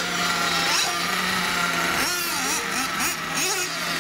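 Several radio-controlled model cars racing round a track, their motors whining up and down in pitch as they accelerate and brake, several at once. A steady low drone runs underneath.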